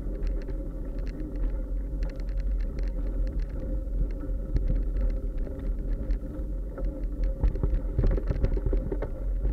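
Steady rumble of wind and vibration on a camera moving quickly over a bumpy dirt path, with frequent irregular rattling clicks.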